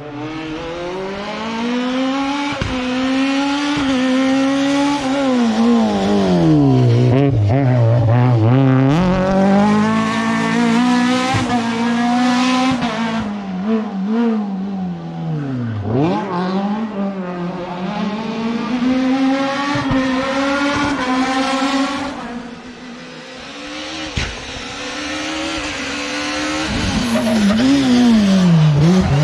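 Renault Clio rally car's four-cylinder engine at racing revs. The pitch climbs hard under acceleration and drops sharply as the car brakes and changes down, with quick throttle blips near the end.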